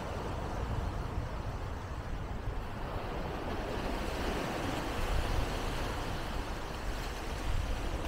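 Steady wash of waves on the beach with wind rumbling on the microphone, no single event standing out.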